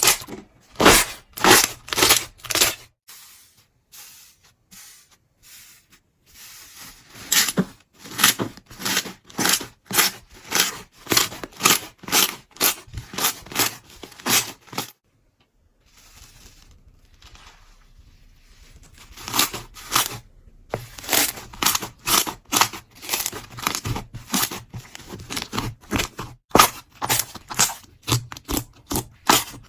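Slime being pressed and squeezed by hand, giving a run of sharp crackling crunches about two a second. The crackles die down for a few seconds near the start and stop briefly about halfway through.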